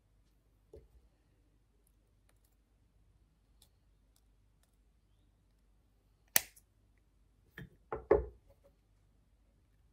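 Jewellery flush cutters snipping through twisted 0.5 mm wire with one sharp click, followed about a second later by three dull knocks in quick succession as the cutters are set down on the table.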